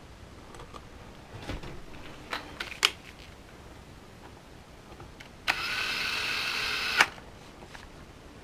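A few sharp clicks and taps of small parts being handled, then a small electric motor whirs steadily for about a second and a half and stops with a click.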